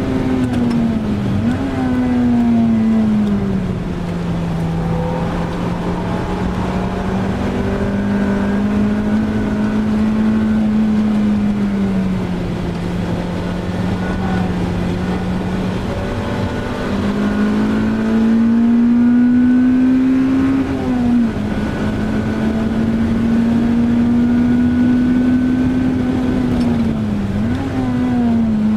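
Honda Civic Type R EP3's 2.0-litre i-VTEC four-cylinder engine heard from inside the cabin, running at high revs through a lap on a wet track. It drops and blips up on downshifts about a second and a half in and near the end, pulls slowly up through the revs, and falls sharply on an upshift about three-quarters through. A constant hiss of wet-tyre spray lies under it.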